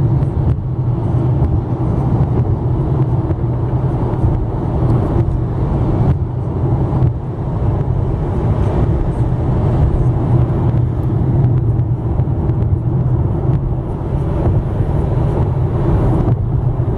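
Steady tyre and engine rumble of a car driving at freeway speed, heard from inside the cabin.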